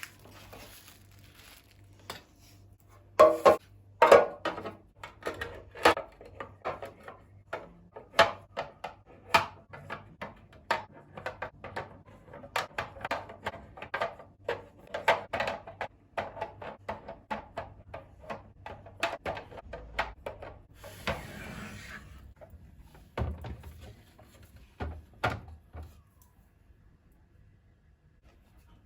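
Household items being handled and set down by hand: a long string of light knocks and clinks, loudest in a couple of sharp knocks about three to four seconds in. A brief rustle comes about 21 seconds in, then a few duller thunks.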